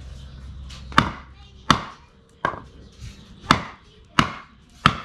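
Dark Timber Knives Devil's Horn, a large 80CrV2 steel camp knife, chopping into a large piece of wood. Seven sharp blows land about every two-thirds of a second, starting about a second in, two of them lighter.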